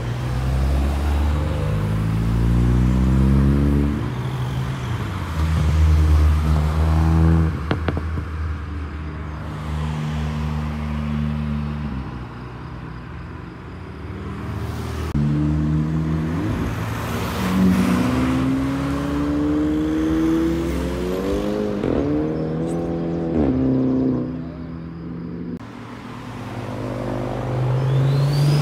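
Tuned hatchbacks accelerate hard past one after another, among them a SEAT Leon Cupra with its turbocharged four-cylinder. Their engine notes climb with the revs and drop back at each gear change, with a few sharp cracks about eight seconds in.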